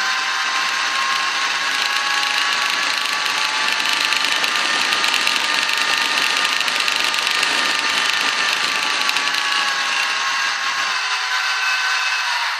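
Sound decoder in an H0 model diesel locomotive playing its engine sound through the model's small speaker: a steady whining engine note over a hiss, rising a little in pitch through the middle and sinking back near the end.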